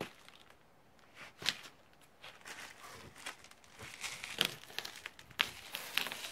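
Irregular crunching and scraping of snow and ice on porch steps being worked by hand, with a few sharper scrapes, the strongest about a second and a half in and again after four seconds.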